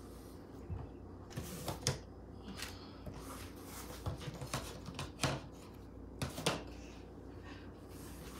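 A few light knocks and taps from handling a cardboard box and a small plastic toy set down inside it, over a quiet room background.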